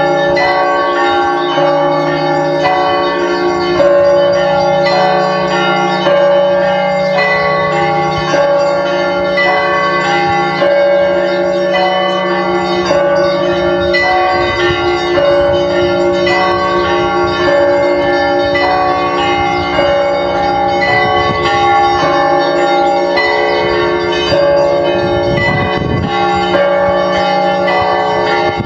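Church bells ringing in a continuous peal: several bells of different pitches struck over and over in a quick repeating pattern, over the long hum of a lower bell.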